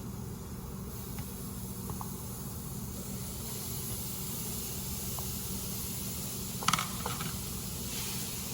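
Seasoned meat sizzling in a hot pot: a steady hiss that builds over the first second, with a sharp clatter about seven seconds in.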